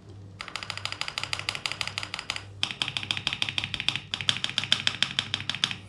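Fast typing on a mechanical keyboard with Akko Lavender Purple tactile switches: a rapid run of keystrokes, about ten a second, with a brief pause right at the start and another about two and a half seconds in. The keystrokes sound low and deep rather than clacky.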